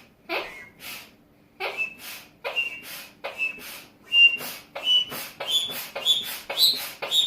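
Air being blown into a slime bubble in short puffs, about two to three a second, each one a brief hiss with a thin whistle whose pitch climbs slowly as the bubble inflates.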